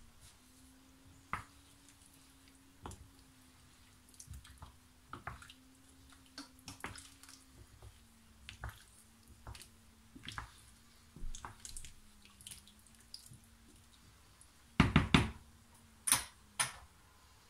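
Wooden spoon stirring a thick, liquid stew in a large pan: wet sloshing and scattered scrapes and knocks of the spoon against the pan, with a few louder knocks near the end. A steady low hum runs underneath.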